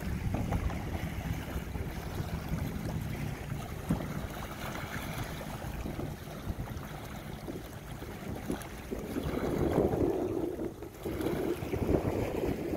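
Wind buffeting the microphone over small waves lapping on a stony lakeshore, with irregular splashes of canoe paddles in the water. The noise swells louder about three-quarters of the way through.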